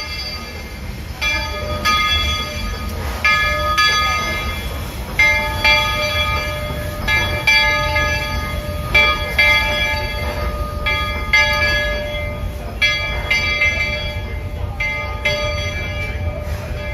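Bell of a Baldwin-built steam locomotive ringing in a steady swinging rhythm, two strokes close together about every two seconds, each fading out slowly. It runs over a low rumble.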